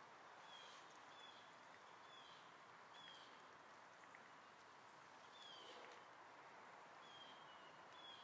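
Faint bird chirps, short notes falling in pitch and repeated roughly once a second with a pause in the middle, over a steady low hiss of outdoor ambience.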